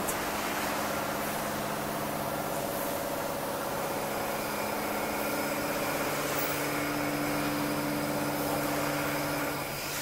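Steady machinery hum with several held low tones; the highest of them stops near the end.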